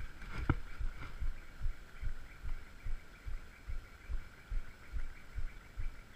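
Footsteps of a person walking over rocks, dull low thumps about twice a second in a steady walking rhythm, with a faint steady high-pitched hum behind them and one sharp click about half a second in.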